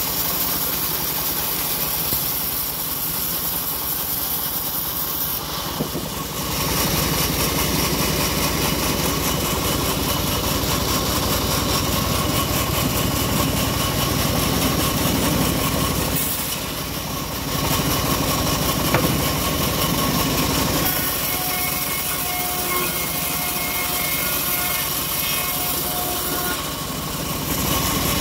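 Homemade vertical bandsaw mill running and ripping an acacia log lengthwise. The machine's steady hum and whine grows louder and heavier in long stretches, with lighter spells in between.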